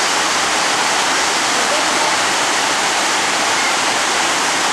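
Steady, loud rushing noise that does not change, with faint voices underneath.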